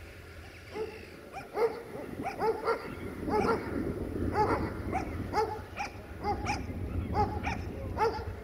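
A dog barking over and over, short barks two or three a second, starting about a second in.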